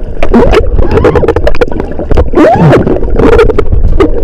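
Sound picked up underwater during a dive: a loud, dense rumble of water noise with many sharp clicks and gurgling. Twice, muffled tones sweep up and then back down.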